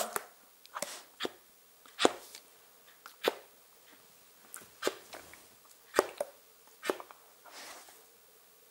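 Border collie giving short, sharp barks and huffs, roughly one every second with a few longer gaps; the first, right at the start, is the loudest.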